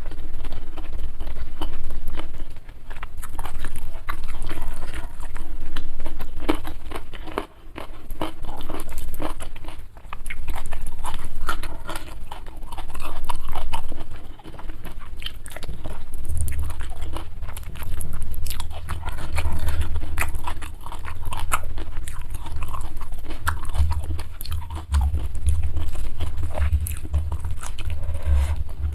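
Close-miked mouth sounds of someone eating: chewing, crunching and biting, swelling and easing every two or three seconds. A low rumble joins in about halfway through.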